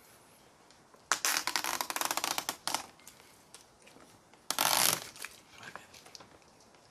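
Red backing liner being peeled off the double-sided adhesive tape under a carbon-fibre spoiler: a crackling tear lasting under two seconds, then a second shorter tear a couple of seconds later.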